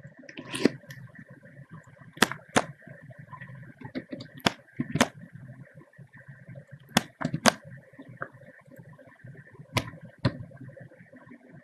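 Sharp clicks of computer keys, mostly coming in pairs about half a second apart, over a faint steady hum.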